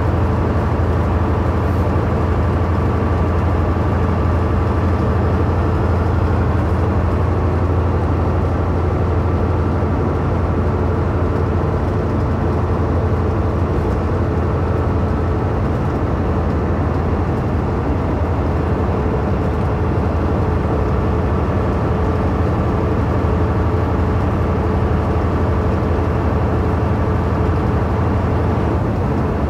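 Semi-truck cruising at steady highway speed: a constant low engine drone with a faint steady whine over tyre and road noise.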